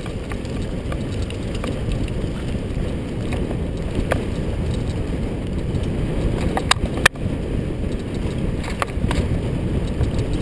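Wind rushing over a helmet-mounted action camera's microphone as a mountain bike rolls fast over a bumpy dirt and grass track, with a steady low rumble and a few sharp clicks and knocks as the bike jolts over bumps, the loudest about seven seconds in.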